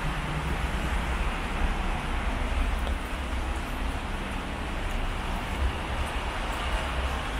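Steady city traffic noise with wind rumbling on the microphone.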